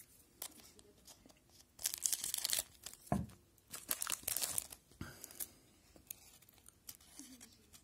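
Foil wrapper of a hockey card pack being torn open and crinkled by hand, in several short bursts.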